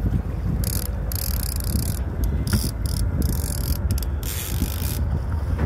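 Fishing reel working against a hooked salmon: a high mechanical hiss from the reel comes in several stretches that start and stop. Under it runs a steady low rumble from the boat and wind, which is the loudest sound.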